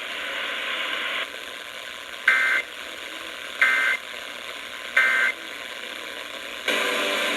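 Emergency Alert System end-of-message data tones on NOAA Weather Radio: three short, equally spaced bursts of harsh two-tone digital warble, each about a third of a second long and roughly a second and a half apart. They sit over steady radio hiss, which grows louder near the end.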